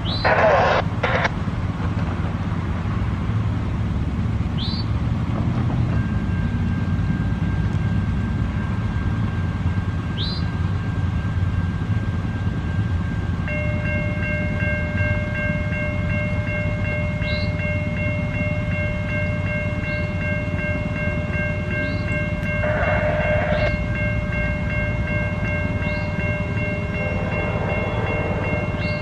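Grade-crossing warning bells start ringing steadily about a third of the way through, over a low rumble from the approaching train. Near the end the train's horn sounds. A brief loud noise comes at the very start.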